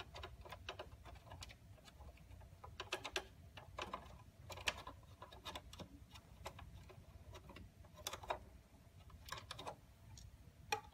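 Small screws being backed out of the slot cover on a CM4000 power meter: faint, irregular clicks and ticks of the screwdriver and screws, over a low steady hum.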